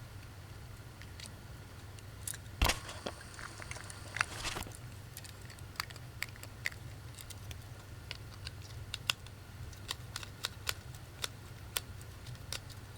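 Small plastic toys being handled, giving scattered light clicks and taps over a low steady hum. There is one sharper knock about two and a half seconds in and a brief rustle a couple of seconds later.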